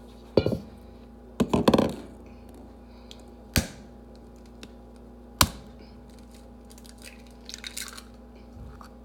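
Eggs being tapped and cracked against a bowl, with two sharp taps in the middle and short bursts of shell crunching and handling, over a faint steady hum.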